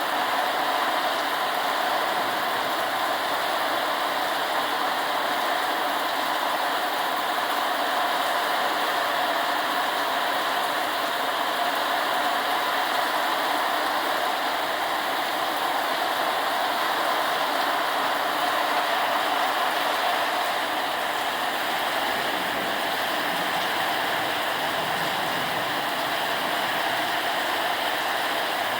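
Heavy rain pouring down steadily in a tropical downpour, an even, unbroken rush of water.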